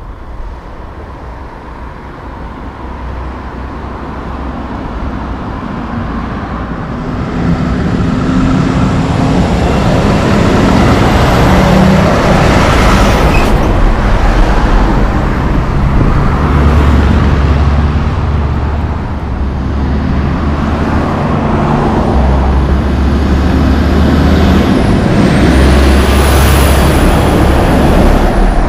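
Heavy tractor-trailers driving past close by, diesel engines running with heavy tyre and road noise. The noise grows louder about seven seconds in and stays loud, with a thin high whine rising and falling near the end.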